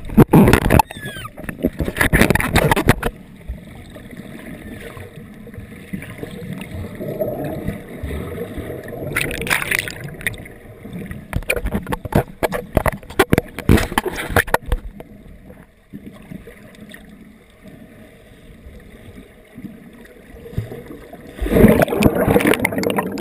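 Splashing and bubbling water heard through an underwater camera housing as it moves through the surface and past kicking swim fins. Loud bursts of splashing come at the start, around 2 s, around 10 s, as a quick run from about 12 to 15 s, and again near the end, with a muffled underwater wash between them.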